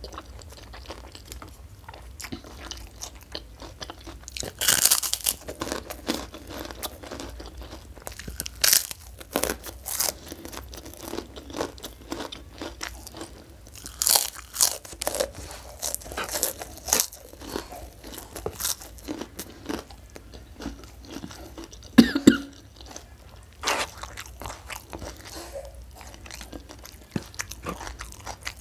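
Close-miked mouth sounds of a person chewing a mouthful of rice and fish eaten by hand, broken by sharp crunchy bites every few seconds, the loudest about 22 seconds in.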